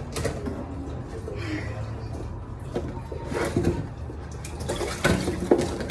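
Hot tap water running into a sink while food containers are washed, with a few clacks of the containers knocking together or against the sink.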